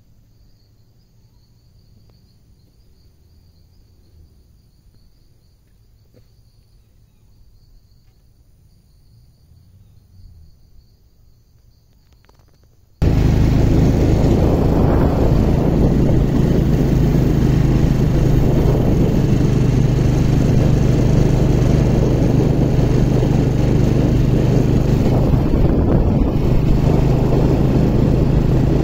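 Faint insect buzzing in a quiet field, then, about halfway through, a sudden cut to a motorcycle engine running steadily at road speed while towing a loaded cart, with wind rushing over the microphone.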